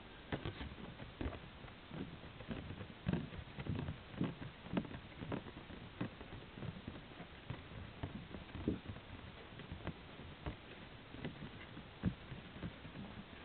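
Irregular soft knocks and clicks, a few a second, of a polarizing filter being handled and turned over a CD case.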